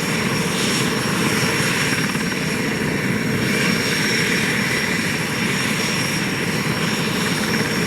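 Aérospatiale SA-330L Puma helicopter running on the ground with its rotors turning: a steady turbine whine over the even rotor and engine noise.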